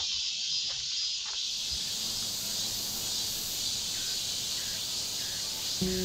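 Steady high-pitched hiss of summer insects in the woods, growing fuller about a second in. Background music starts just before the end.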